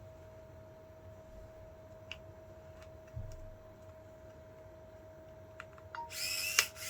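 A few scattered light clicks and one soft knock over a faint steady hum, then a louder hissing burst with a sweeping pitch near the end.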